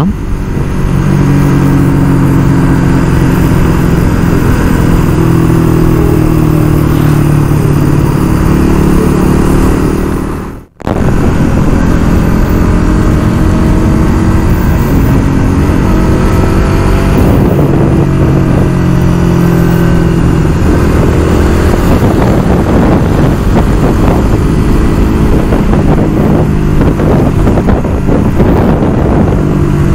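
Motor vehicle travelling along a road: the engine runs under steady road noise, with the engine pitch shifting now and then. The sound drops out suddenly and briefly about eleven seconds in.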